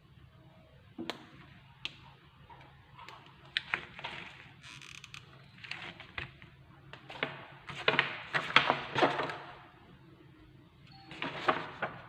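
A run of irregular knocks and clatters, several close together and loudest about two-thirds of the way through, over a faint low hum.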